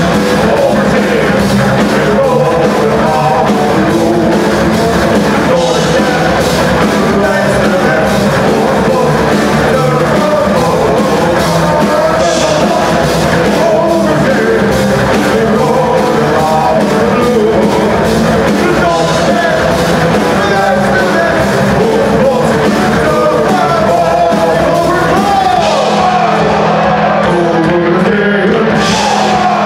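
Folk metal band playing live and loud: guitars, bass and drums under male voices singing a melody together. Near the end the heaviest low end drops away while the singing carries on.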